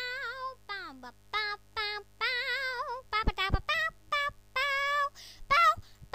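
High-pitched, squeaky cartoon-creature voices chattering in short sung syllables, with a warbling pitch and one downward slide about a second in.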